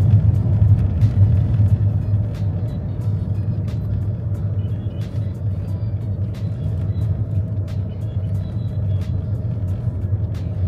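Steady low rumble of a car's engine and tyres heard from inside the cabin while driving, with scattered light clicks.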